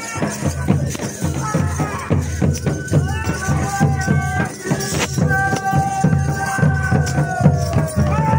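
Himachali folk band with dhol barrel drums beating a steady rhythm. From about three seconds in, long held high notes sound over the drums, the last one sliding down in pitch near the end.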